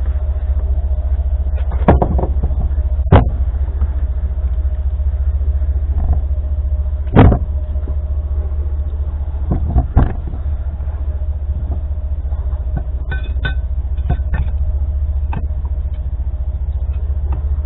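Steady low rumble with a faint steady hum, broken by four sharp knocks in the first ten seconds and a quick run of lighter clicks and taps in the second half.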